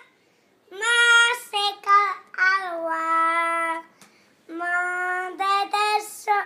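A young boy singing unaccompanied in held, sustained notes, in two phrases separated by a short pause about four seconds in.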